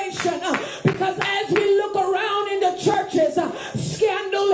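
A high-pitched voice in short, half-sung phrases with no recognisable words.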